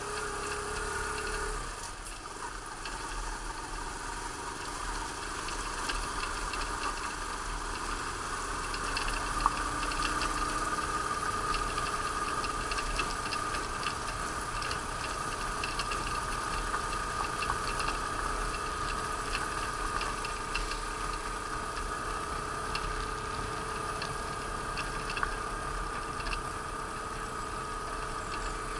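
Yamaha YBR125's single-cylinder four-stroke engine running steadily under way, with small ticks and rattles.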